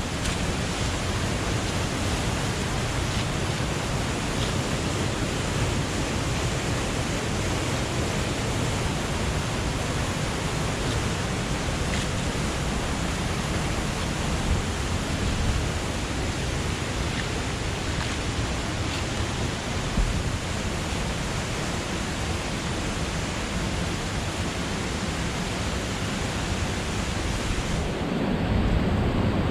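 Steady rushing of flowing water. About a second and a half before the end the hiss thins and a deeper rumble comes up.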